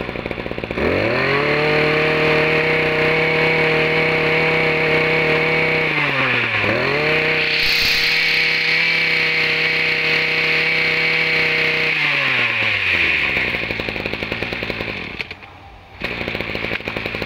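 Small two-stroke brush cutter engine revved up hard to a high, steady scream, with a brief drop and pick-up about six seconds in. Around twelve seconds it is throttled back and winds down. Near the end a recoil starter cord is pulled out.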